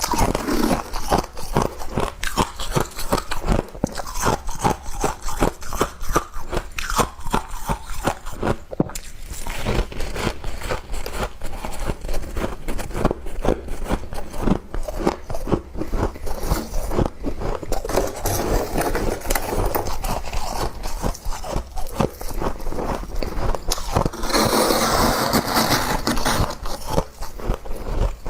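Mouthfuls of humidifier-grown freezer frost being crunched and chewed close to the microphone, a fast run of crisp crunches that grows denser and more continuous in the last few seconds.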